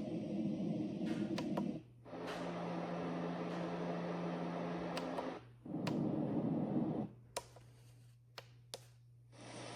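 Sunrise alarm clock's built-in sound machine playing looped relaxing or white-noise samples through its small speaker. It switches to a different sample every couple of seconds, one with a steady low hum under the hiss. Sharp clicks come in a quieter stretch near the end before a new sample starts.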